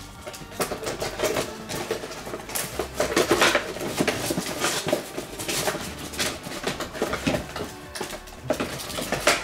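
Packaging being handled by hand: irregular rustling, scraping and light knocks, busiest and loudest about three seconds in.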